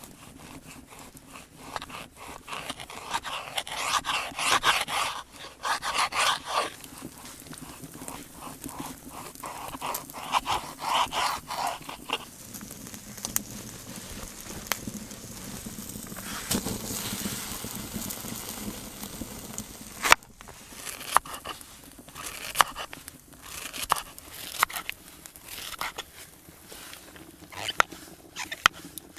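Kitchen knife cutting bacon and mushrooms on a wooden board. Runs of quick slicing strokes come in the first half, a softer rustling stretch follows, and sharp separate knocks of the blade against the board come in the second half.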